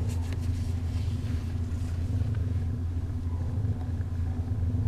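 Domestic orange tabby cat purring steadily while being petted, a loud, continuous low rumble.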